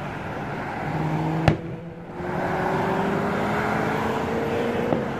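Road traffic passing, with one car's engine note rising steadily as it accelerates. A single sharp bang from an aerial firework cracks about a second and a half in, the loudest sound, and a fainter pop comes near the end.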